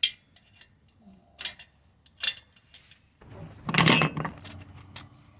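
Metal wrench clinking and scraping on exhaust-joint nuts: a few short sharp clicks, with a longer rattle about three to four seconds in.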